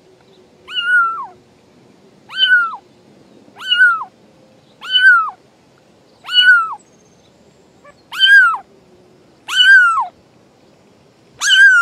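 A kitten meowing over and over: eight high meows about a second and a half apart, each holding its pitch and then dropping at the end.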